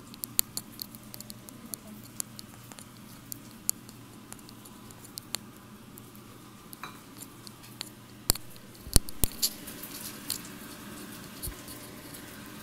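Leftover rice being stirred and turned in a stainless steel pan, with scattered light clicks and taps of the utensil against the metal and a few louder knocks about eight to nine seconds in.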